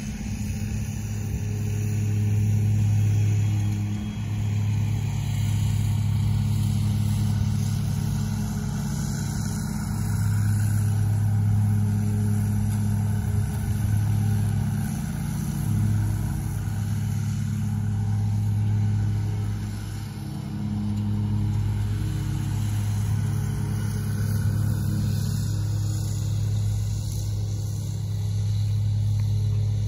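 Ride-on lawn mower engine running at a steady speed, a low drone that swells and fades every few seconds.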